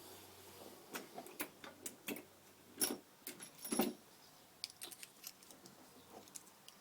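Small metal parts of an RC car ball differential and hand tools being handled: scattered light clicks and clatters, with the two loudest about three and four seconds in.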